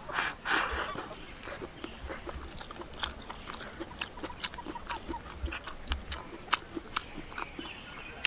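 Close-up eating sounds: rice and edamame being scooped and slurped from the bowl with chopsticks near the start, then open-mouthed chewing with many small wet clicks and smacks. A steady high insect drone runs underneath.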